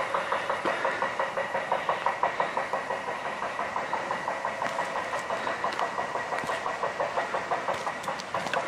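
Rapid, even hammering from a gypsum quarry, about four blows a second, going on without a break.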